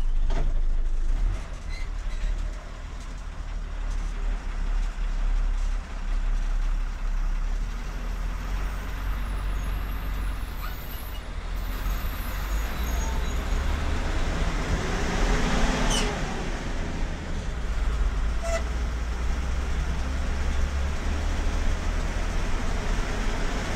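Steady low engine and tyre rumble heard inside a car's cabin on a wet road. A large bus swells past about halfway through. Two sharp clicks come soon after.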